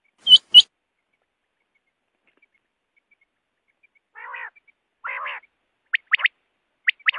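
Quail calling: two loud, sharp notes in the first second, then two short raspy nasal calls about four and five seconds in. From about six seconds the quick three-note song of a common quail starts and repeats.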